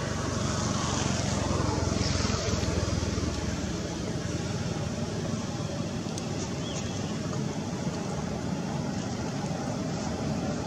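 Steady outdoor background rumble, heaviest in the low end, swelling slightly about a second in and easing off by about three seconds.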